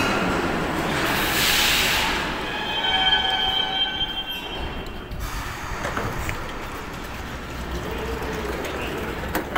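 Saint Petersburg metro train pulling into the platform and braking to a stop. About a second in there is a burst of hiss, then a squeal of several steady tones for a couple of seconds as it halts, after which a low rumble continues.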